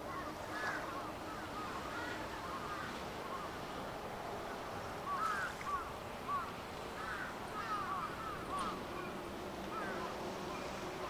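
Birds calling again and again in short, arched cries, several overlapping at times and loudest about halfway through, over a steady low hum.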